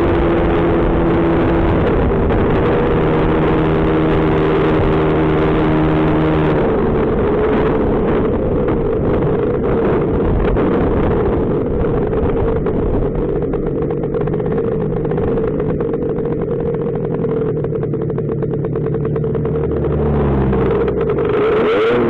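Two-stroke Lambretta GP scooter engine running at a steady cruise, with wind rushing over the handlebar-mounted microphone. The wind eases about a third of the way in and the engine note settles lower as the scooter slows. Near the end the note dips and then starts to rise again as the throttle opens.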